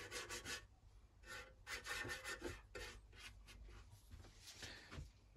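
A brush rubbing paint stripper onto the painted sheet-metal case of an Optimus 111 stove: faint, scratchy strokes coming in several short runs.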